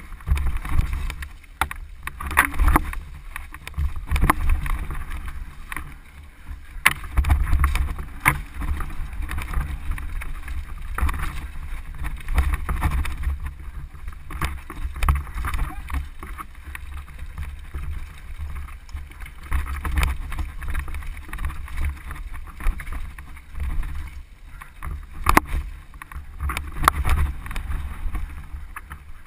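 Mountain bike descending a rocky dirt trail, heard from a camera on the bike or rider: wind buffeting the microphone, a rough rush of tyres on dirt and stones, and scattered sharp knocks and rattles as the bike hits rocks, the loudest about 7 seconds in and near the end.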